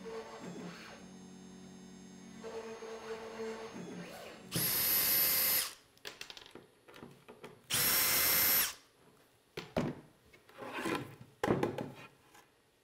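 Small handheld cordless vacuum switched on twice, each run lasting about a second with a high motor whine, clearing sawdust from a freshly CNC-carved MDF panel. A low steady hum comes before it, and a few light knocks follow as the panel is handled.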